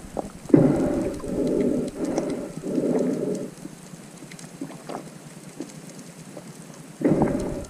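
Muffled underwater rushing of water against an underwater camera housing, in two bouts with a quieter stretch between, over scattered faint clicks.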